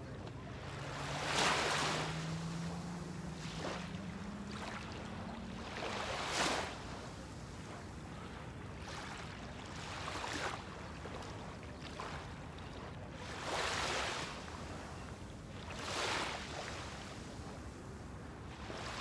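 Small waves lapping on a sandy shore, a soft wash every few seconds, about six times, over a steady bed of wind. A faint low hum rises in pitch over the first few seconds.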